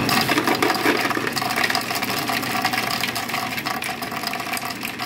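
Push-button ice dispenser running, its motor humming steadily while ice cubes clatter down into a plastic-lined ice bucket.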